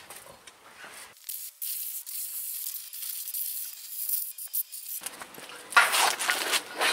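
Aerosol brake cleaner spraying onto a drum brake assembly: a steady hiss that starts about a second in and lasts about four seconds. A louder burst of noise follows near the end.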